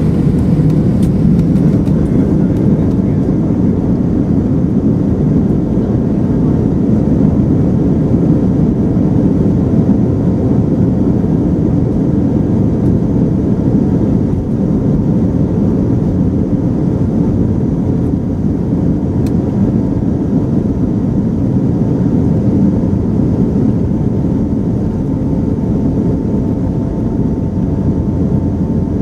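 Steady jet engine noise inside the cabin of an Airbus A319-131 with IAE V2500 turbofans, a loud, even low rumble with a faint steady hum above it, as the airliner climbs after takeoff.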